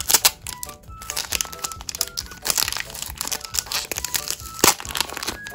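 Crinkling, crackling and tearing of a foil-lined plastic blind bag being torn open by hand, with a few sharper crackles, over light background music.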